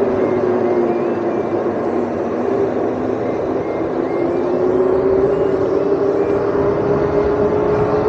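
Electric dirt bike riding at speed: a steady motor whine that dips slightly in pitch and then rises again, over a heavy rush of wind on the helmet-mounted microphone.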